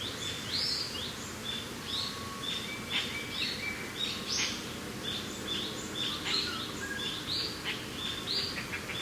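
Several birds chirping and calling in quick, overlapping short notes, some sweeping upward, over a steady low rush of wind.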